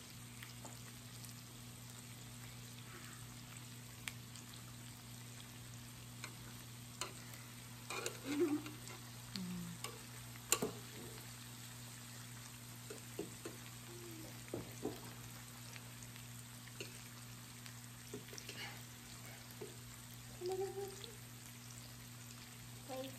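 Pork and mushrooms sizzling on an electric raclette grill plate: a steady frying hiss, over a steady low hum, with scattered sharp clicks and taps of utensils.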